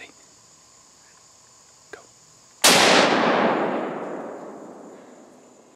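A single gunshot about two and a half seconds in, a sharp blast followed by a long echo that fades away over about three seconds. It is the shot that drops a doe where she stands.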